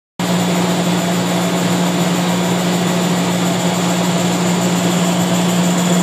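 Two 1966 Cleaver Brooks oil-fired boilers running: a loud, steady roar of burners and blower fans with a steady low hum beneath it.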